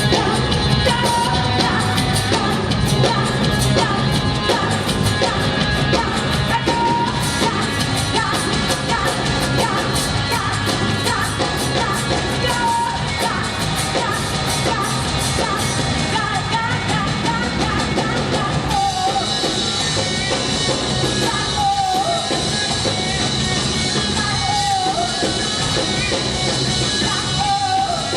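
Loud rock-pop music with a singer and a steady beat, with shouted vocal lines.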